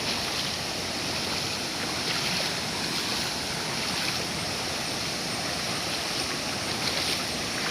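Steady, even rush of a rain-fed hill stream tumbling downhill as a small waterfall.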